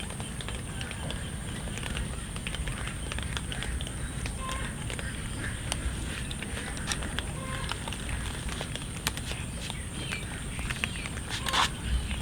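Cats eating, with many small irregular crunching clicks as they chew their food.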